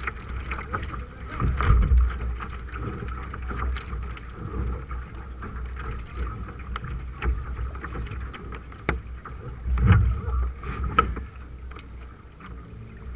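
Kayak paddle blades striking and pulling through lake water beside a K1 sprint kayak, close to the hull, with wind rumbling on the microphone. The noise surges louder twice, about two seconds in and again about ten seconds in.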